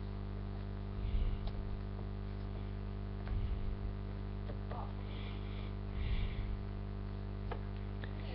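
A small toy comb brushing through a toy cat's fluffy tail: a few soft rustling strokes over a steady low hum.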